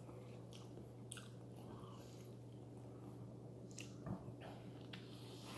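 Close-miked mouth sounds of someone chewing and biting into an egg burrito in a soft homemade tortilla: faint scattered wet clicks and smacks, a slightly louder one about four seconds in, over a steady low hum.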